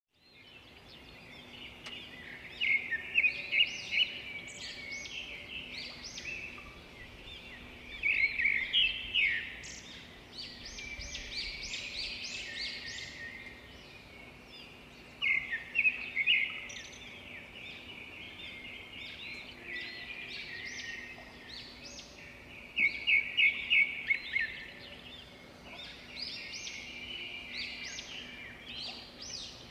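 Birds chirping and singing continuously, with louder runs of rapid chirps every several seconds, over a faint steady low hum.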